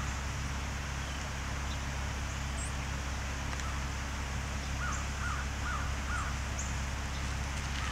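Four short, harsh animal calls in quick succession, about half a second apart, over a steady low rumble.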